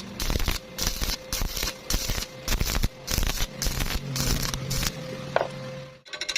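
Electric arc welding: the arc crackles in uneven stretches with short breaks over a faint steady hum, then cuts off suddenly near the end.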